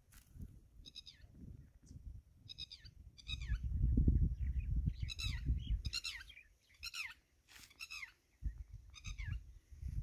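Repeated short, high animal calls, each falling in pitch, about one a second, over an uneven low rumble of walking through dry grass.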